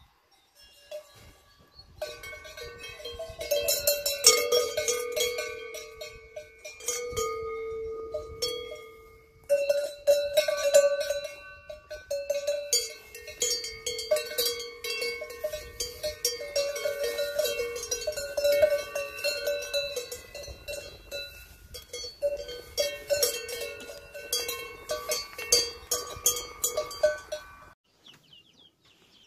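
Cowbells on the collars of grazing cattle clanking irregularly, each strike ringing on with a metallic tone as the cows move their heads. The clanking starts about two seconds in and cuts off suddenly near the end.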